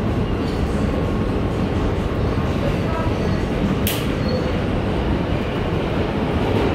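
Steady rumble of an R160B Siemens subway car running on the rails, heard from inside the car, with one sharp click about four seconds in.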